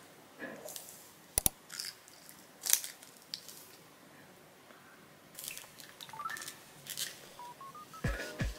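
Small handling noises: a sharp tap about a second and a half in, then scattered clicks and paper rustles. Near the end a gentle melody of rising notes starts, with two soft low thumps.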